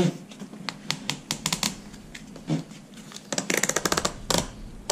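Hands working the straps and fittings of a Summit Viper SD climbing tree stand: a string of sharp clicks and ticks, with a quick run of rapid clicks about three and a half seconds in.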